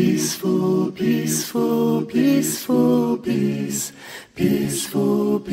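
A cappella nasheed: a voice singing without instruments, in short notes about two or three a second.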